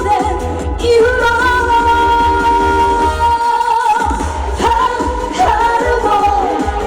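Live trot song: a backing track with a steady bass beat under long held melody notes, the bass dropping out briefly a little past the middle.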